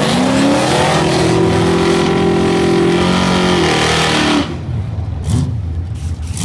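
Drag race car engines at full throttle in a pass down the strip, the pitch climbing briefly, then holding steady before falling away as the throttle comes off. About four and a half seconds in the sound drops off sharply, leaving a quieter engine with a short rev near the end.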